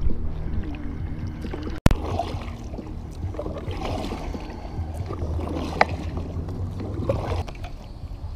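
Kayak paddle strokes: the blades dip and splash in the water, over a steady low rumble. A brief dropout and a sharp click come about two seconds in.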